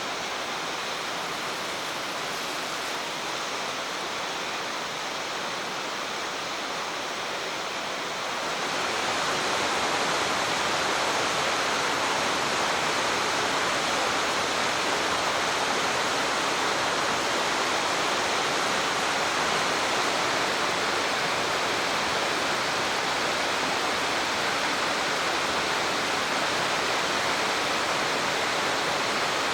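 Waterfall on a mountain stream: a steady rush of falling water that grows louder about eight seconds in, then holds.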